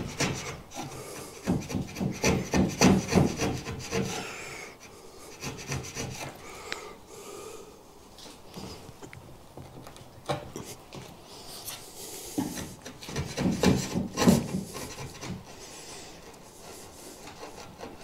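Wood chisel paring and scraping thin shavings out of a hinge rebate in a wooden door frame, in short repeated rubbing strokes. The strokes come in a run over the first few seconds, go quieter in the middle, and come in another run about two-thirds of the way through.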